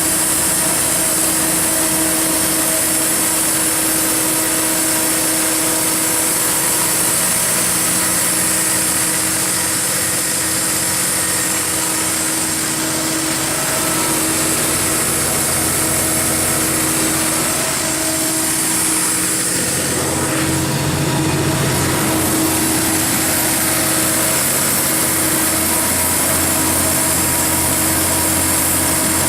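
Cummins QSB7-G5 inline-six diesel engine running the 200 kW generator set at a steady speed, a constant engine drone with a high steady whine over it. The low rumble grows stronger about twenty seconds in.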